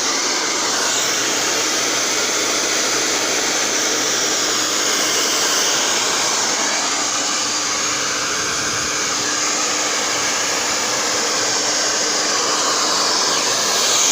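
Taiff Tourmaline Íon Cerâmica 2000 W hair dryer with a professional AC motor, running steadily: a loud, even rush of blown air with a faint motor hum underneath.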